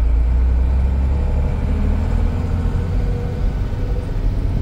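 Mercedes-Benz 1418 4x4 truck's diesel engine running steadily while driving, a strong low rumble heard inside the cab.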